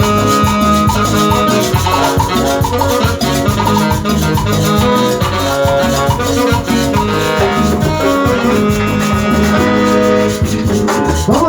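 Instrumental break of Latin tropical dance music with a steady beat, a bass line, maracas and a plucked guitar melody, with no singing.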